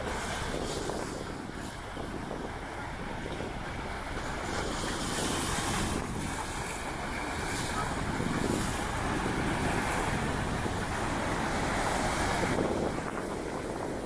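Wind buffeting the microphone over the wash of sea waves, swelling for several seconds and dropping off sharply near the end.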